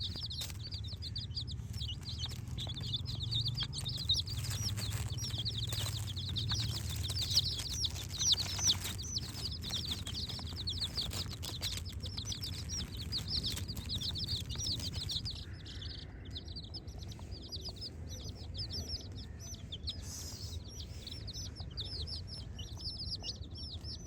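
Chicks peeping continuously, many short high peeps overlapping in a steady chorus, with scattered faint clicks.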